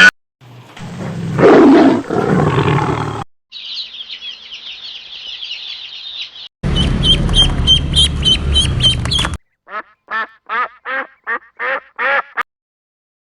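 A run of separate animal sound clips, one after another. First comes a noisy sound of about three seconds, then high chirping bird calls, then more chirping over a louder noisy background. Near the end come eight short pitched calls in quick succession.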